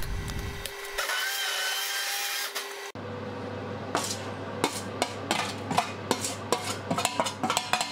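An immersion hand blender runs steadily in a pot of thick vegetable sauce. About three seconds in it gives way to a string of short clicks and scrapes against a stainless steel pot lid as crushed garlic is tipped off it into the pot.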